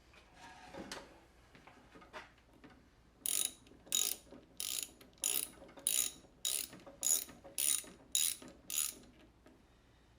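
Hand ratchet wrench backing out the bolts on a 5.7 Hemi's cam phaser. About three seconds in it starts a steady run of about ten short ratcheting bursts, roughly one every half-second.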